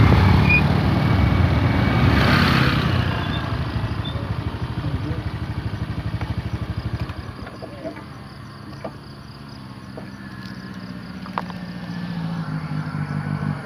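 Motorcycles running along a road, with wind noise. The sound is loudest in the first few seconds and fades with a fast pulsing, then drops to a quieter, steady low engine hum from about halfway, which grows a little near the end.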